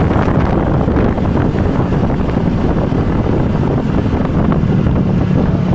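Bus running, with heavy wind buffeting the microphone; a steady low drone comes in about halfway through.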